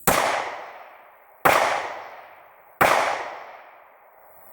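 Three gunshots from a hard-kicking firearm, fired about a second and a half apart, each followed by a long echo that dies away.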